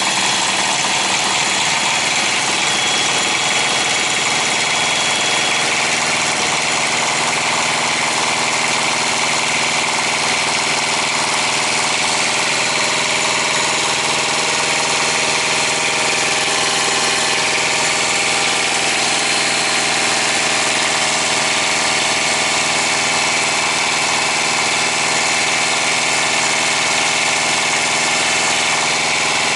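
Small diesel engine of a Thermo King truck APU running at a steady idle after a water pump replacement, with the coolant just bled of air.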